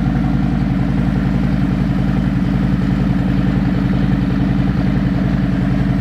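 Harley-Davidson Street Glide Special's Milwaukee-Eight V-twin idling steadily through newly fitted Shark Road slip-on mufflers, a loud, even, pulsing exhaust note with no revving.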